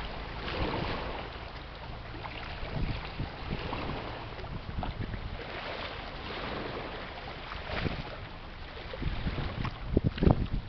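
Wind buffeting the microphone: a rushing with uneven, gusty low rumbles and a few sharp thumps near the end.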